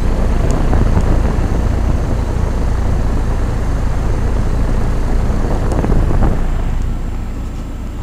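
1988 Heil heat pump outdoor unit running iced over: its condenser fan and compressor give a steady low rumble with a rush of air through the fan grille, easing a little from about seven seconds in. The unit is stuck out of its defrost cycle, which the owner puts down to a faulty defrost control board.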